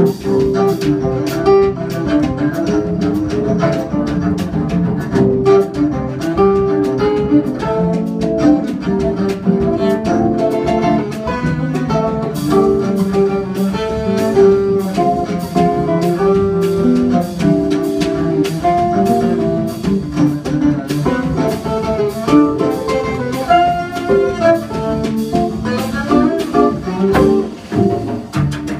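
Instrumental samba played live by a trio: a bowed cello carries the melody over a nylon-string acoustic guitar and a drum kit with cymbals keeping a steady, busy beat.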